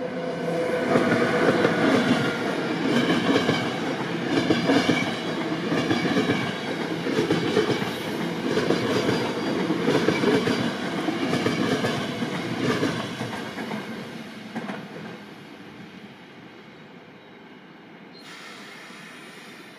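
A train passing close by, its wheels clattering over the rail joints in a steady rhythm for about twelve seconds before the sound fades away. Near the end there is a short hiss.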